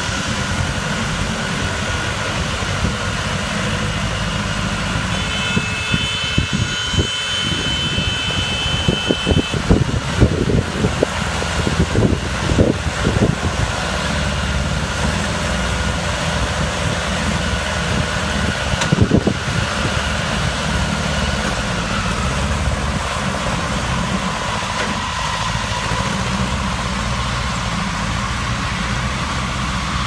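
Small farm tractor's engine running steadily while it tows a mini round baler through cut grass. A spell of irregular knocks and clatter comes a few seconds in, and one more sharp knock just past the halfway point.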